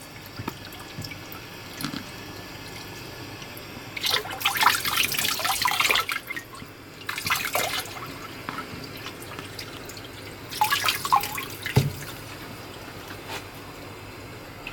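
Kitchen tap water splashing onto hands and a plastic colander in three short spells as sea cucumber is rinsed, with a dull knock late on.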